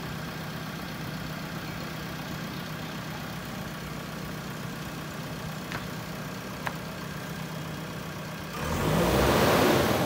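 JCB 3DX backhoe loader's diesel engine idling steadily. About a second and a half before the end, a loud rushing noise swells in over it.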